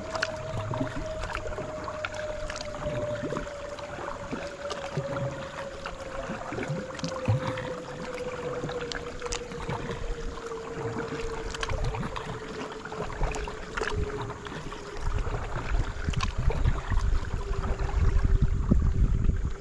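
Paddle strokes on calm water: the dip and drip of a paddle with small clicks and splashes about every two seconds. A steady hum slides slowly down in pitch throughout, and a low rumble builds over the last few seconds.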